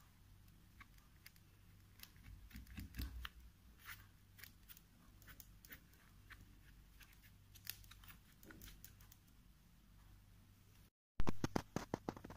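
Faint, irregular crackles and ticks from hands handling canvas paper and its edges, over a low steady hum, with a short burst of louder crackling near the end.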